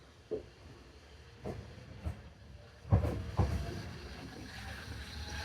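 Train wheels knocking over rail joints: a few separate knocks, the later ones louder and closer together, over a low rumble and hiss of running noise that grows louder.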